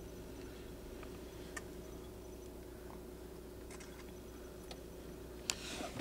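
Faint steady low hum with a constant tone, heard from inside a stationary car, with a few soft clicks. Near the end there is a brief louder knock and a rustle.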